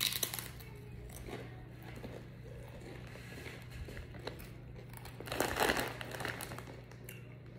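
A crisp bite into a blue corn chip, then quiet chewing crunches, with a louder crinkling crackle about five and a half seconds in.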